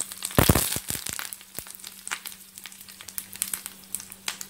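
Curry leaves, mustard seeds and cumin spluttering and crackling in hot oil in a frying pan during tempering. The crackling is loudest about half a second in, then eases to a thinner, steady sizzle.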